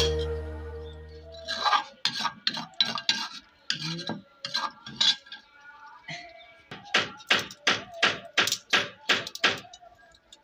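Background music fading out, then a quick run of sharp knocks with a light metallic clink, like kitchen utensils striking, about three a second. They come in two bursts with a short pause about halfway through, and the later burst is louder.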